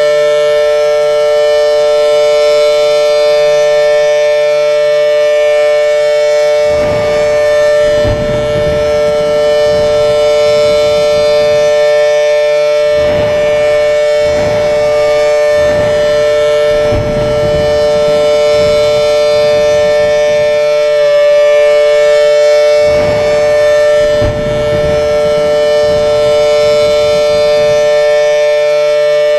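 Air raid siren sounding a steady alert tone: two close pitches held together, loud and unchanging. Intermittent low rumbling noise comes and goes underneath for most of the middle.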